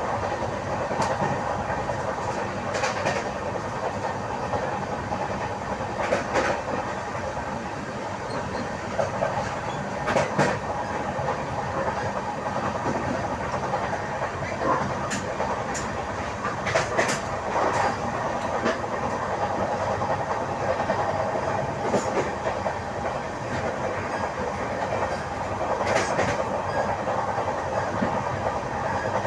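Express train's wheels rolling on the track, a steady rumble with clickety-clack and sharp knocks every few seconds, the hammering the uploader puts down to a flat wheel.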